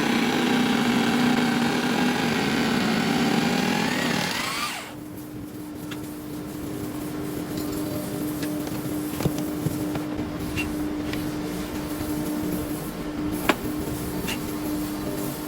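Jigsaw motor running, then switched off about four and a half seconds in. A quieter steady hum and a few light clicks follow.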